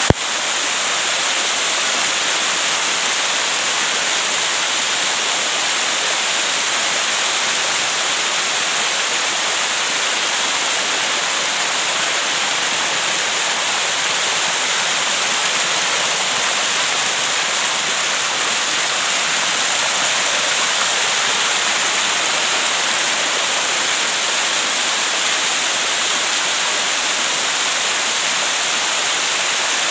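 Small waterfall cascading over rock ledges, heard close up as a steady rush of falling and splashing water. There is a short click right at the start.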